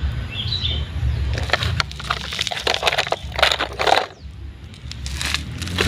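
Rustling and crunching noises in several short bouts over a steady low rumble, with a brief high chirp about half a second in.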